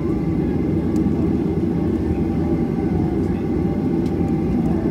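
Steady low rumble inside a jet airliner's cabin as it taxis, with the underwing engines at idle and the airframe rolling over the taxiway.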